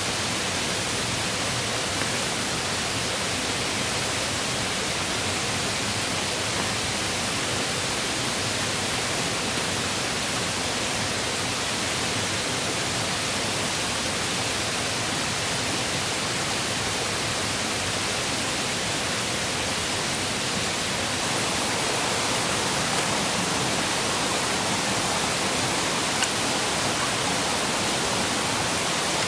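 Steady rush of flowing river water, an even hiss that grows slightly louder about two-thirds of the way through.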